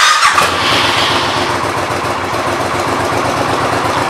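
Suzuki VS1400 Intruder's V-twin engine starting, catching at once and settling into a steady idle with an even pulse.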